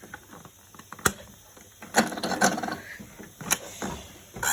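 A few sharp plastic clicks and knocks, about four spread over several seconds, with faint rustling in between, from a toy washing machine being handled and its buttons pressed.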